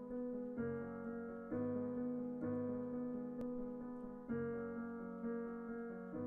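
Piano chords played on a Roland Juno-DS keyboard, each struck and left ringing before the next, a new chord about every second or two.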